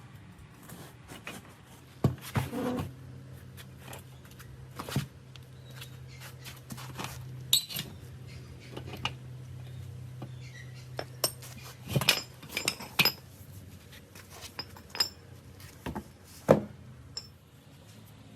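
Metal tools and small metal parts clinking and knocking against each other in irregular handling, a dozen or more sharp strikes, the loudest about two seconds in, twelve seconds in and near the end. A low steady hum runs under the first two-thirds and then stops.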